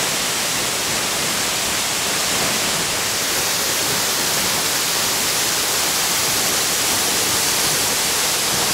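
Steady, even rush of a tall Alpine waterfall pouring onto rocks, heard from close by in its spray.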